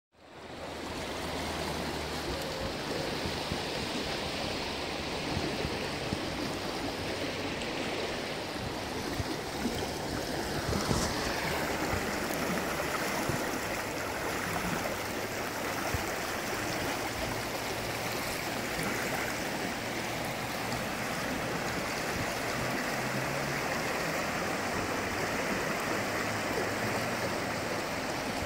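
Shallow river water rushing over flat bedrock shelves and small rapids: a steady, even rush of running water.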